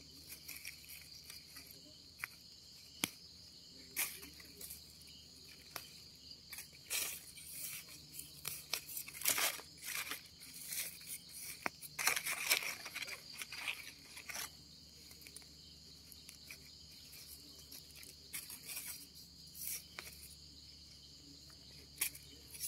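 A steady chorus of crickets chirping, with intermittent rustling, crunching and scraping in dry leaf litter and soil as termite mushrooms are dug out by hand and knife. The handling noise is busiest in the middle, with scattered single clicks elsewhere.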